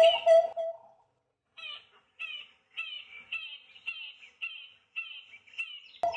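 Acacia pied barbet calling. A fast series of loud, repeated notes stops within the first second. After a short pause comes a quieter run of short, falling chirps about two a second, and the loud series starts again abruptly near the end.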